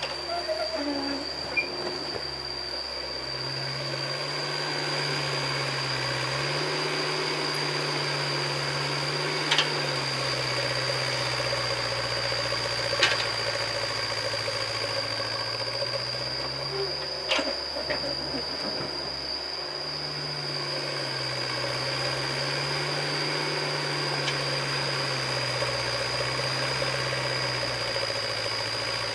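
Mini excavator's diesel engine running under hydraulic load as it digs and swings sand, its pitch rising and falling every few seconds with the work, with a thin steady high whine and a few sharp knocks.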